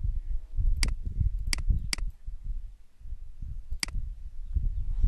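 Computer mouse clicking, four single sharp clicks spread over a few seconds, over an uneven low background rumble.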